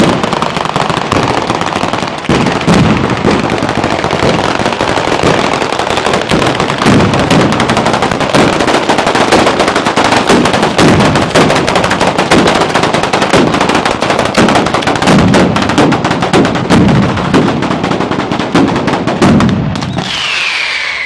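A ground-laid firework batteria: a chain of firecrackers and spark fountains firing along the street, giving a loud, dense, rapid-fire crackling and banging. It thins slightly near the end, with a falling whistle just before it stops.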